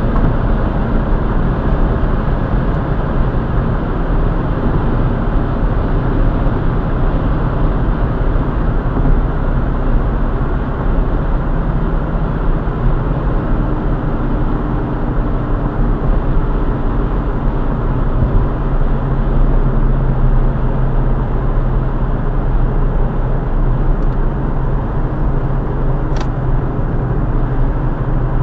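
Steady road noise inside a car at motorway speed: tyre rumble and engine drone. There is one short click near the end.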